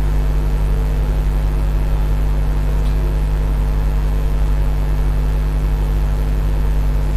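Steady electrical mains hum with a faint whir, unchanging throughout.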